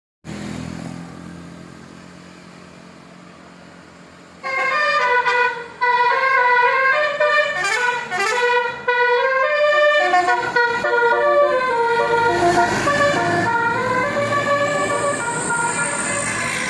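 A tour bus's Basuri 'telolet' multi-tone horn playing a melody of changing notes, starting about four seconds in and running on, with some notes sliding downward midway. Before it, only a low engine hum.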